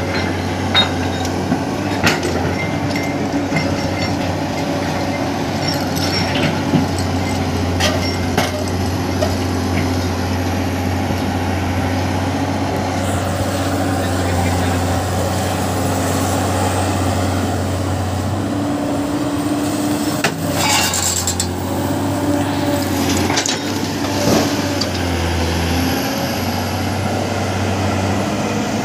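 Heavy construction machinery's diesel engine running steadily under load, with scattered knocks and clanks from the machine at work.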